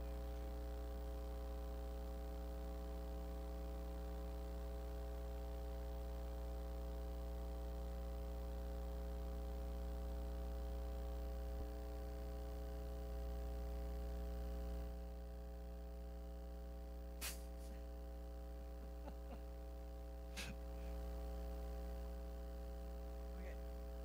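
Steady electrical mains hum in the room's sound system, with a low drone and several fainter steady tones above it. It drops slightly in level partway through, and two brief clicks come a few seconds apart near the end.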